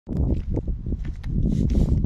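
Footsteps on cobblestones with scattered clicks, over a heavy, uneven low rumble on the phone's microphone.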